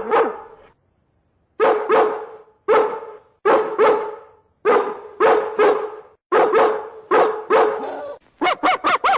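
Dog barking repeatedly, mostly in pairs of barks, with a quicker run of shorter barks near the end.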